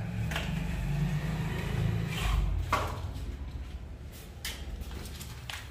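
A steady low rumble with a few sharp clicks spread through it: small plastic breaker-box parts being handled and snapped.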